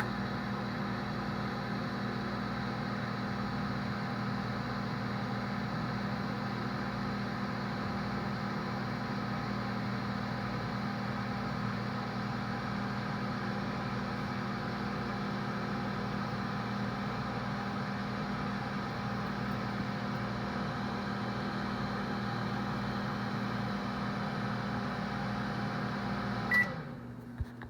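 Microwave oven running with a steady hum. About a second before the end, a short high beep sounds and the hum cuts off: the heating cycle has finished.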